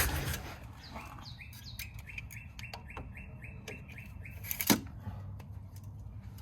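A bird chirping a quick run of short, even notes, about four a second, over a low background. A single sharp click comes about two-thirds of the way through.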